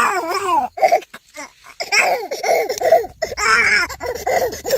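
A high-pitched voice making wordless cries and babble, in short bursts with pauses between them.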